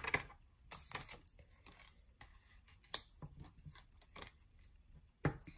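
Tarot cards being handled and laid down on a table: a few short, soft slaps and rustles of card stock, the loudest near the end.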